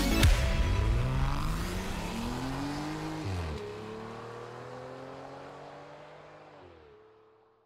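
Small SUV accelerating away on a gravel road. Its engine pitch rises, drops at a gear change about three seconds in, holds steady, then falls again near the end as the sound fades into the distance.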